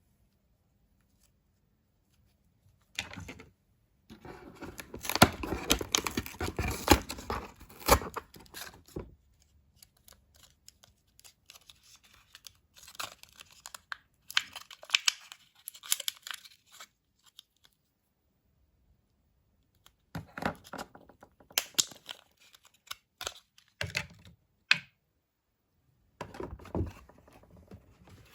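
Doll packaging being torn open and crinkled by hand, in four bouts of tearing and rustling with sharp clicks, separated by short quiet pauses.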